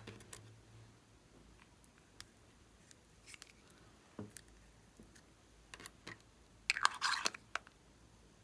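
Small plastic cosmetic containers being handled: scattered light clicks and taps, then a quick run of crackling clicks near the end, the loudest part.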